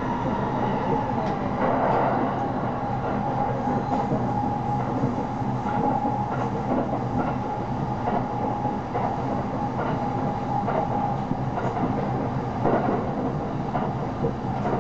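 Electric commuter train running at speed, heard from inside the passenger car: a steady rumble of wheels on rail with a steady high whine over it, and light clicks now and then as the wheels pass over rail joints.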